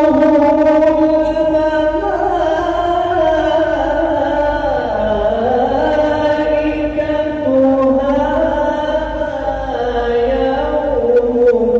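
A male qari reciting the Quran in the melodic tajweed style, drawing out long held notes that slide down in pitch and climb back up in one unbroken phrase.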